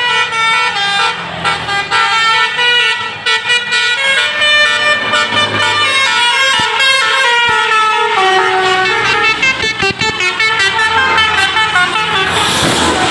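A tour bus's basuri 'telolet' musical horn playing a tune, a run of horn notes stepping up and down. A short rush of noise comes near the end.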